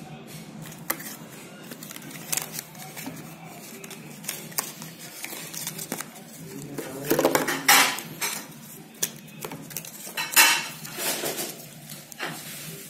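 A small foil-lined cardboard box being pulled open and unfolded by hand: card and paper rustling and crackling with scattered taps and clicks, loudest in two bursts about seven and ten seconds in.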